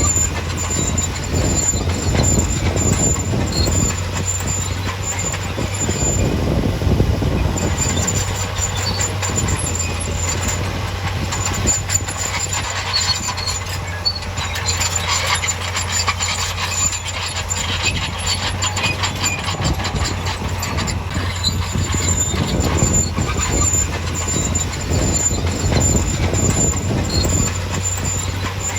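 Bulldozer working, its diesel engine running as a steady low rumble under continuous clanking and an on-off high squeal from its steel crawler tracks.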